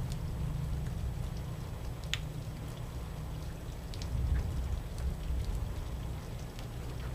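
Steady rain falling, with scattered single drops ticking sharply close by over a low, steady rumble.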